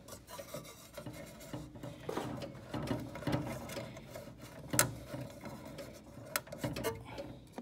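A hand fumbling among wires inside a sheet-metal cabinet, tugging at a stubborn push-on wire connector on a speaker terminal: rustling and scraping with scattered clicks, a sharp one about five seconds in.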